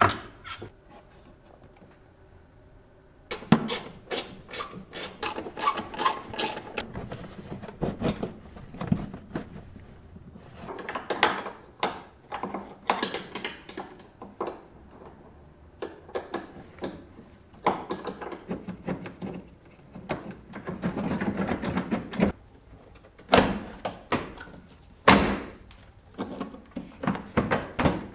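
Hand work on a car's headlamp assembly: irregular clicks, knocks and scrapes of tools and hard plastic parts being handled. It begins after about three quiet seconds, with a few louder hollow knocks later on.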